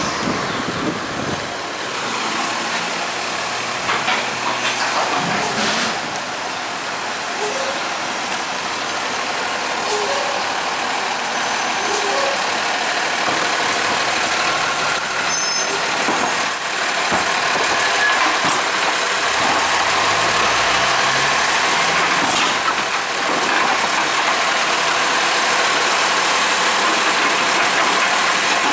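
Autocar ACX garbage truck's diesel engine running as it pulls up to the curb, with air-brake hissing. Near the end its Heil Durapack Python automated arm lifts a recycling cart to dump it.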